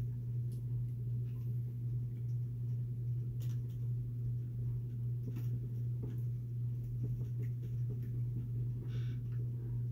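Steady low hum throughout, with faint, scattered clicks and taps of small parts and tools being handled as the wheels are taken off an RC crawler.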